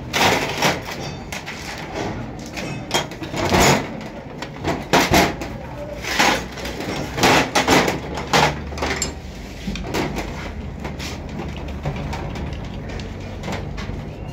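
Metal hand tools clinking and clattering against each other and the engine casing on a workbench: a dozen or so sharp, irregular knocks, thinning out after about ten seconds, over a low steady hum.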